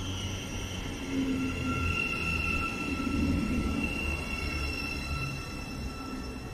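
Thameslink Class 700 electric multiple unit rolling along the platform: a low rumble of wheels on rail with a steady high whine above it.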